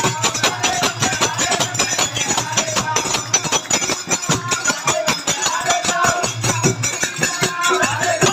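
Kirtan music: fast, steady hand percussion with jingling cymbals or shakers, over short melodic phrases.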